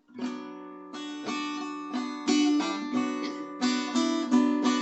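Music: an acoustic guitar strumming chords in a steady rhythm, starting just after a moment of silence.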